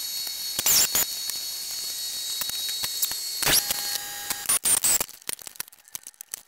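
Scattered clicks and knocks of gloved hands and tools handling parts in a car's engine bay as the battery is taken out, over a steady high hiss that stops about five seconds in.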